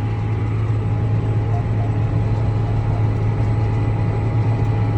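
Tractor engine running steadily under load while pulling a chisel plow: a constant low drone with a faint steady whine above it.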